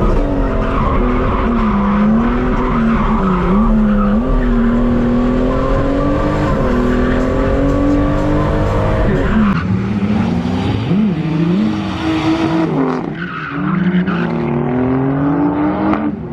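Lexus IS200/IS300 straight-six engine revving hard while the car drifts, its pitch swinging up and down as the revs rise and fall, over the hiss of tyres skidding on the surface.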